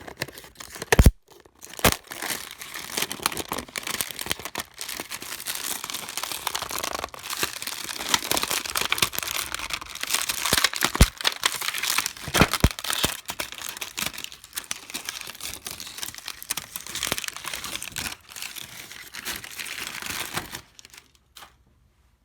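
Steady crinkling and tearing from the insides of a MacBook Pro A1398 laptop being pulled apart by hand, broken by several sharp clicks; it stops abruptly near the end.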